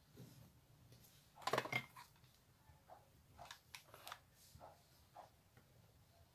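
Faint rustling and small taps of hands handling and rolling a satin ribbon over a sheet of paper. The loudest burst of rustling comes about a second and a half in, with scattered soft clicks after it.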